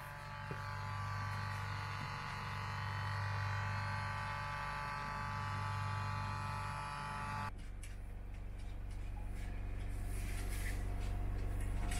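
Newly fitted hermetic fridge compressor running with a steady electric hum while it is charged with refrigerant. About seven and a half seconds in, the sound cuts to a lower, rougher hum.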